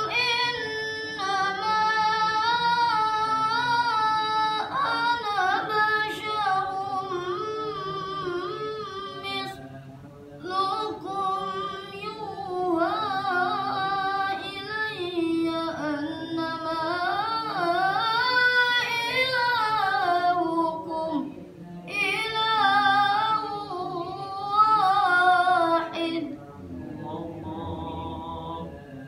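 A child qori's voice chanting melodic Quran recitation (tilawah) in long, ornamented phrases, with breaths about ten and twenty-one seconds in. The voice stops a few seconds before the end.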